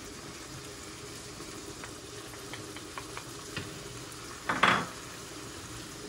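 Onions, mushrooms and peppers sizzling steadily in a pan of olive oil and tomato paste while being stirred, with a few light utensil ticks and one short, louder clatter of a spoon on the pan about four and a half seconds in.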